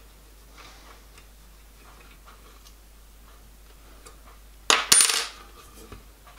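Faint small clicks of steel parts being handled, then, about five seconds in, a brief loud metallic clatter of steel parts knocking together inside the die filer's sheet-steel housing.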